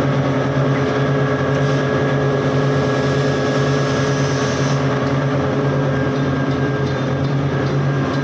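Steady hum of running industrial machinery: a low drone with several constant tones over a rumbling bed. A fainter high hiss stops abruptly a little past halfway.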